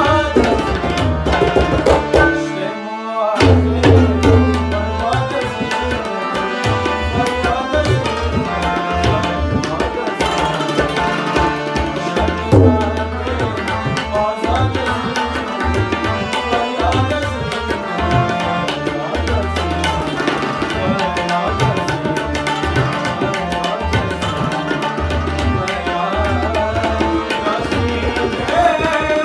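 Live Afghan-style ensemble: tabla playing a steady rhythm under harmonium and plucked rubab, with a male voice singing. The tabla drops out briefly about three seconds in, then comes back.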